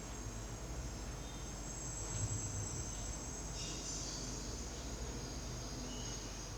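Insects trilling steadily at a high pitch, with a low background hum.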